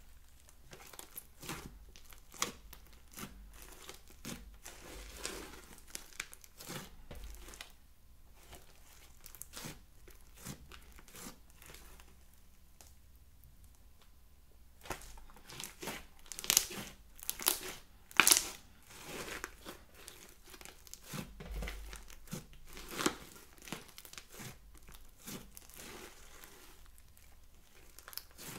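Hands kneading and stretching a green fluffy slime studded with small beads: irregular wet crackles and clicks as it is pressed and pulled apart. The crackling thins out briefly near the middle, and the loudest cluster of clicks comes about two thirds through.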